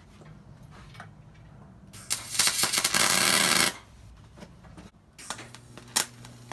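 A welding arc crackling in one burst of about a second and a half, a couple of seconds in, amid scattered small clicks and taps of metal; later a low steady hum sets in with a sharp click.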